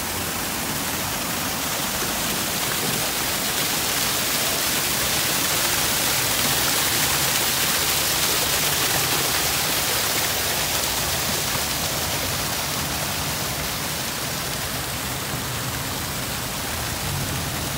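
Man-made waterfall: water rushing in a steady, loud wash that swells a little in the middle.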